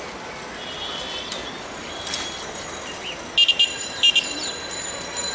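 Busy railway-station ambience as an overloaded passenger train arrives: a steady outdoor noise, with a run of short, high-pitched toots a little past three seconds in.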